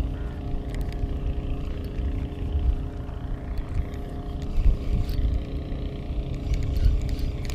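A steady engine hum at an even pitch, with a low, uneven rumble on the microphone.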